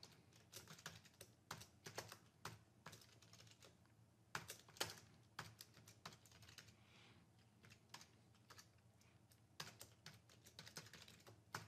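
Faint typing on a computer keyboard: irregular runs of keystrokes with a couple of short pauses.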